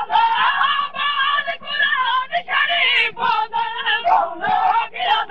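Large crowd of men chanting a nauha refrain together in loud, ragged unison, with some voices shouting above the rest.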